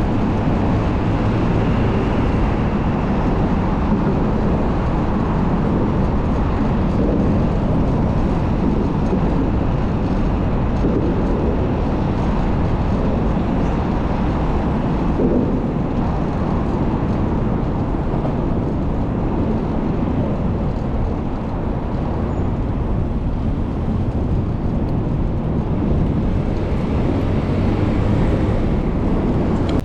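Steady rushing wind noise on the microphone of a moving bicycle, mixed with city street traffic.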